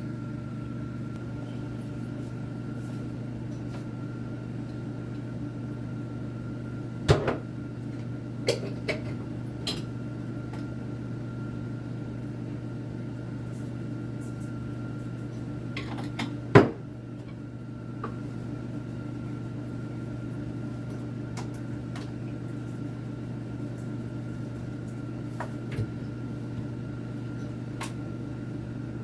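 Steady electric hum with a thin high whine from kitchen appliances. A few sharp knocks and clacks of cupboard doors and pots or dishes sound over it, the loudest about halfway through.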